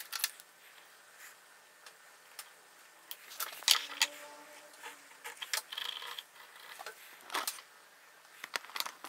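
Scattered light clicks and scrapes of a metal square and a pencil being handled against the end grain of a wooden block while the door-rebate profiles are marked out. The louder clicks come about three and a half, five and a half, and seven and a half seconds in.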